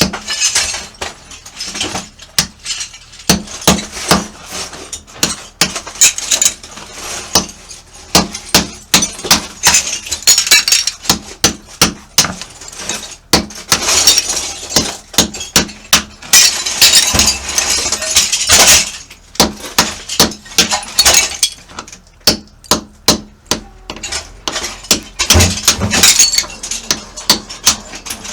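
A hammer striking a carbide chisel to chip ceramic bathroom tiles off, in irregular sharp blows a few times a second. Between the blows, tile pieces crack and clatter as they break away.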